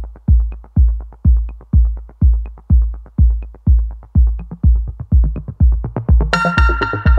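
Electronic background music: a steady kick drum about twice a second, with synth chords coming in about six seconds in.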